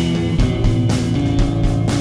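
Live rock band: a semi-hollow electric guitar strumming chords over a drum kit keeping a steady beat.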